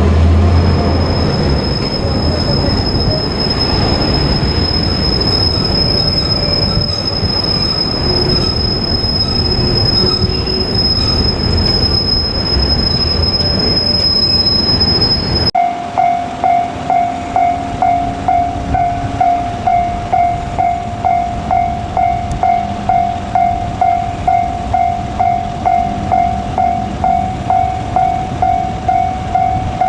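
Freight train hauled by a JR Freight EF510 electric locomotive rolling past: steady wheel-on-rail noise with a high whine above it. After a cut about halfway, a Japanese level-crossing alarm rings about twice a second.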